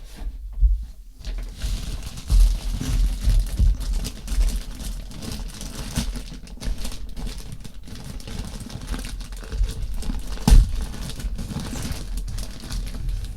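Packaging being opened and handled by hand: crinkling and rustling with scattered clicks and knocks, and one sharper knock near the end.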